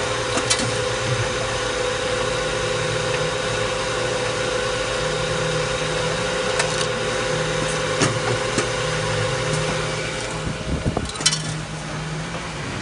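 Chia Lern CH CM0203B automatic chamfering machine running: a steady motor and grinding-wheel hum with a shifting low drone from the transport rollers, broken by occasional sharp metallic clicks. About eleven seconds in there is a short burst of knocks and a clatter.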